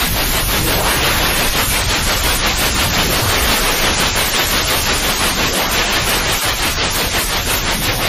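Steady white noise: an even hiss spread across the whole range, played as a sleep sound to lull a baby.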